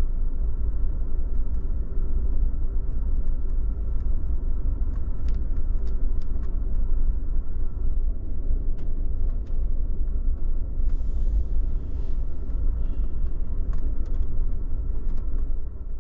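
Steady low rumble of the Amtrak Empire Builder passenger train running, heard from inside the car, with faint scattered clicks and rattles and a brief hiss about eleven seconds in.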